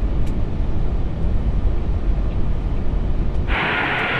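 Airbus A380 cockpit noise on short final: a steady low rumble of airflow and engines. About three and a half seconds in it switches abruptly to a steady, narrower hiss in the middle range.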